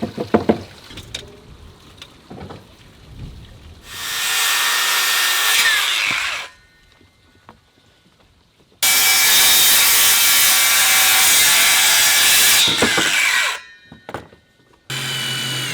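Power saw cutting wooden deck boards: two cuts, a short one and a longer one of about four seconds, each ending as the blade winds down.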